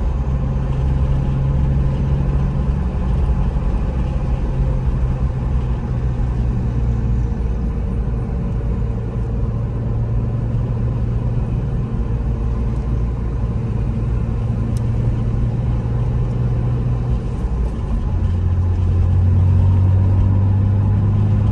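1998 BMW M3's straight-six engine running under way with tyre and road noise, heard from inside the cabin. A few seconds before the end the engine note drops in pitch and grows louder.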